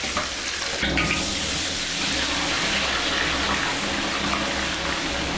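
Sliced potatoes deep-frying in a wok of hot oil: a steady, dense sizzle and bubbling that grows louder about a second in.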